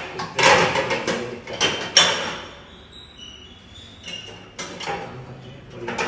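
Stainless steel plates and pans knocking and clattering against a dishwasher's wire rack as they are shifted in the lower basket. The clatter is busiest in the first two seconds, dies down in the middle, and picks up again with a few knocks near the end.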